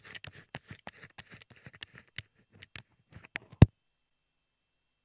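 Handling noise picked up by a UHF wireless microphone: a run of irregular small clicks and rustles as the mic is moved about, ending about three and a half seconds in with one sharp knock, after which the sound cuts out to dead silence.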